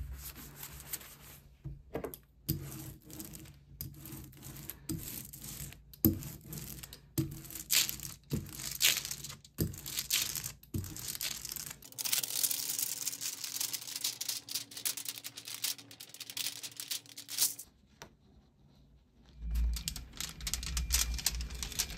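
A damp sponge wiping and a rubber brayer inking an aluminum foil kitchen lithography plate: repeated short strokes, then several seconds of steady rolling. Near the end, handling as paper is laid on the plate, with a low rumble.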